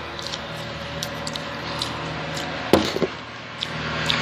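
Mouth-noise eating sounds: scattered wet clicks and smacks while meat is chewed and gnawed off a bone, with one louder short sound about three seconds in.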